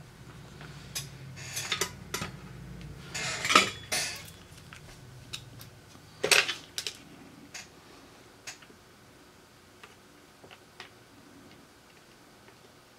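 Small metal hand tools clinking and clattering on a workbench as they are picked up and set down: a string of sharp clicks, the loudest about three and a half seconds in, then fainter, sparser ticks.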